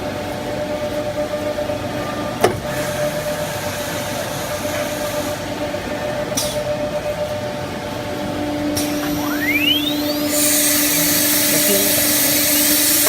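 SUDIAO S5 CNC nesting router running with a steady hum and a sharp click about two and a half seconds in. Near the end its spindle spins up with a fast-rising whine and then settles into a loud, even hiss.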